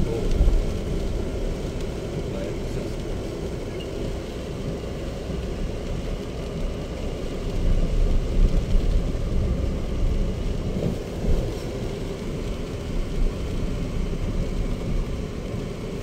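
Inside the cabin of a Chery Tiggo 7 Pro driving along a muddy forest dirt track: a steady low rumble of tyres and suspension on the rough, wet ground, swelling a little about eight seconds in.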